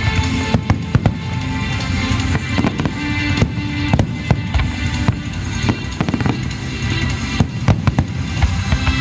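Aerial fireworks bursting and crackling in rapid succession, with a continuous low rumble, over music with long held notes.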